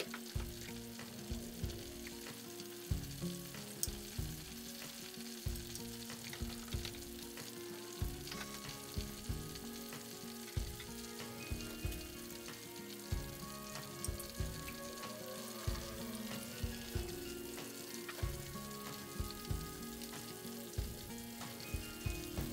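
Battered chicken deep-frying in hot corn oil in a wok, a steady bubbling sizzle with a scatter of small crackles.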